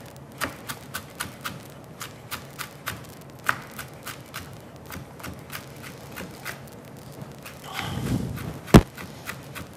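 Chef's knife mincing green and red hot peppers on a wooden cutting board: quick, even knocks of the blade on the board, about three a second, with one sharper, louder knock near the end.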